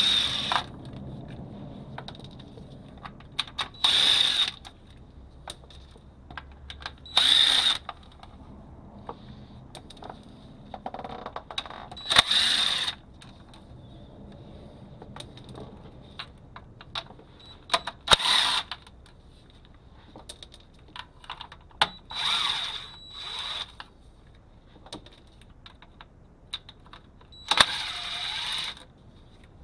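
Small impact wrench with a 13 mm socket running in short bursts, a few seconds apart, backing out the bolts of an Allison 1000 transmission pan. Small metallic clicks and clinks come between the bursts.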